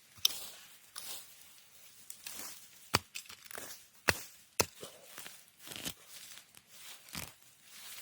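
A hand garden tool digging into soil: irregular scraping with several sharp chopping strikes, the loudest about three and four seconds in.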